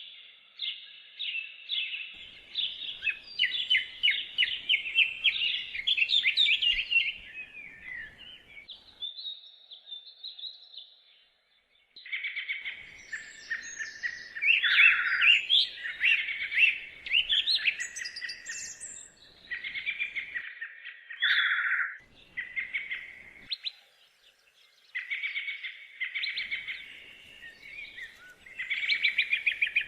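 Songbirds singing in woodland: rapid chirped trills and warbled phrases from several birds, overlapping and coming in bursts, with a brief near-silent pause about a third of the way in.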